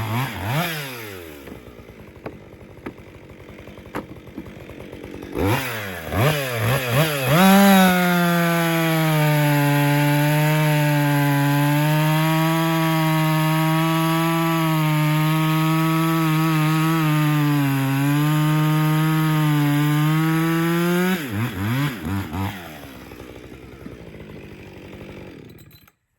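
Husqvarna 562XP two-stroke chainsaw. It drops to idle, blips the throttle a few times, then runs flat out through a log cut for about thirteen seconds, its pitch sagging a little under load. It then falls back to idle and is switched off near the end.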